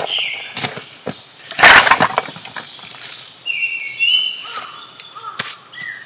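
Dry twigs and split firewood snapping and knocking as they are broken and stacked to lay a campfire. There are scattered cracks throughout, and the loudest crunch comes about two seconds in.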